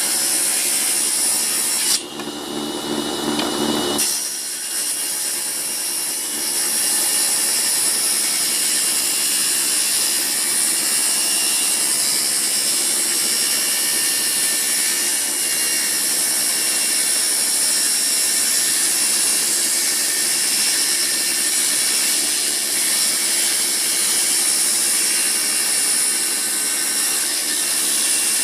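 Assembled table saw running steadily with a steady high whine, broken by a brief different stretch about two seconds in.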